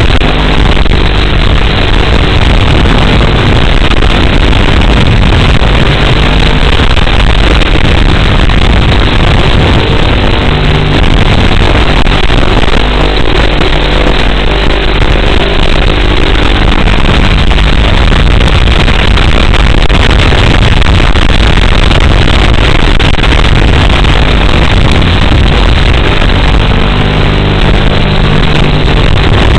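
Motors and propellers of a ducted micro FPV quadcopter buzzing, loud and steady, with a pitch that shifts up and down as the throttle changes.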